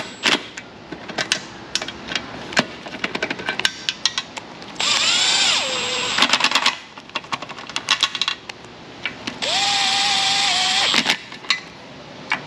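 Small impact tool running bolts down in two bursts, about five and ten seconds in: the first rises and falls in pitch, the second holds one steady note. Short clicks and knocks of tools come between the bursts. The bolts are being snugged down before final torquing.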